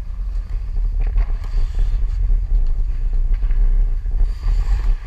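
Wind buffeting the microphone of a body-worn camera on a skating ice hockey player, a heavy low rumble. Skate blades scrape on the ice over it, loudest about a second in and again near the end.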